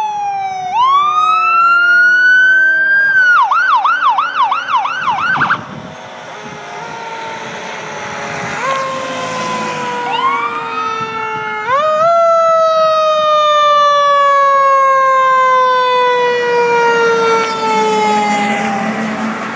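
Emergency-vehicle sirens from an ambulance and a Pierce fire engine passing on a call. One siren rises into a wail, then switches to a fast yelp of about four sweeps a second that cuts off about five seconds in. A second siren climbs in steps and then winds down slowly over about seven seconds.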